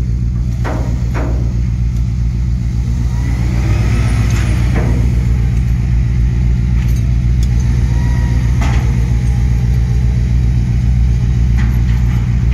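Heavy machinery in a shipyard running with a steady, loud low engine drone, with a few sharp metallic knocks near the start and again near the end.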